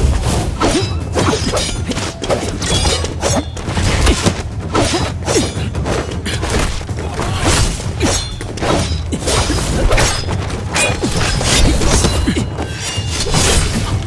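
Fast fight sound effects: a dense run of sharp strikes, metal blade clashes and hits in quick succession, several a second, over music.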